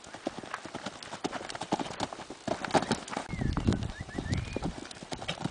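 A cob pony's hooves beating on the ground, a run of quick, uneven strikes, with a heavier low rumble joining about halfway through.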